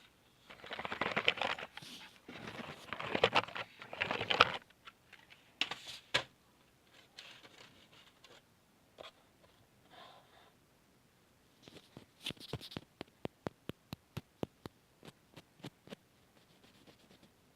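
Close-miked ASMR handling sounds: dense rustling and crinkling for the first four or five seconds, then scattered soft sounds, and a quick run of light, sharp taps or clicks, about three a second, between twelve and sixteen seconds in.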